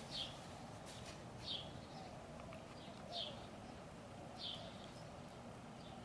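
A bird calling: a short, high chirp that falls in pitch, repeated four times about every one and a half seconds.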